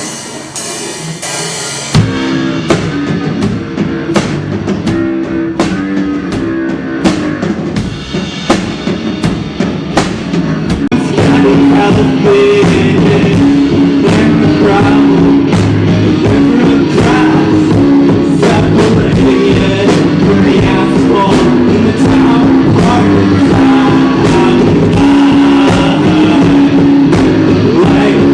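Live rock band playing: drum kit and guitar come in together about two seconds in, and the band gets louder at about eleven seconds.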